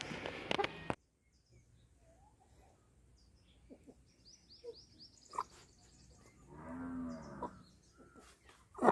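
Aseel chickens: clucking in the first second, then an abrupt drop to quiet with a run of faint high peeps and one drawn-out lower call about seven seconds in. A sharp knock near the end.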